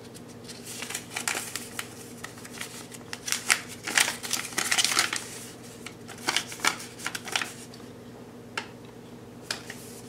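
A folded paper instruction leaflet being unfolded and handled: irregular rustling and crackling of paper in short spells with brief pauses.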